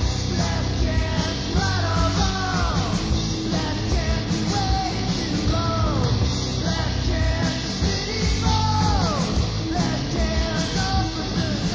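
Punk rock band recording with electric guitar and a dense, loud full-band sound, falling sliding notes recurring about every two seconds over it.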